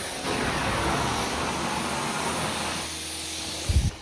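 Steady hiss of a swivel-head carpet-cleaning wand pulling air under the extraction machine's vacuum as it is pushed over the carpet, with a short low thump near the end.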